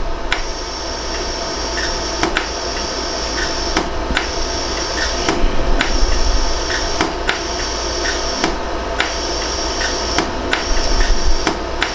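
100-joule iWeld jewellery laser welder firing a steady series of short pulses, each a sharp click, about two a second, over a steady high whine. These are small smoothing shots on a 14K yellow gold post weld.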